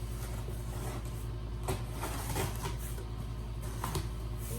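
Cardboard sneaker box being opened and handled: several short rustles and knocks, with a steady low hum underneath.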